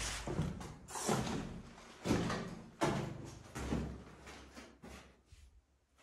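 Footsteps scuffing on a gritty cellar floor, about one step a second, dying away near the end.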